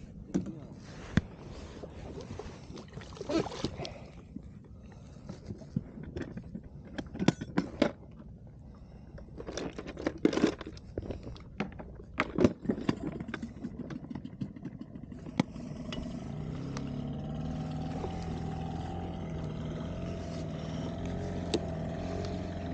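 Scattered knocks and scrapes of fishing gear and a landing net handled on an inflatable boat, then from about fifteen seconds in a small outboard motor running steadily.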